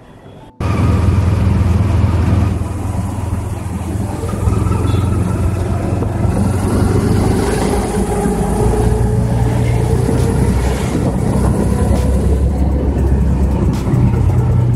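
Ride in a moving motor vehicle heard from on board: the engine runs steadily under loud road and wind noise. It cuts in abruptly about half a second in.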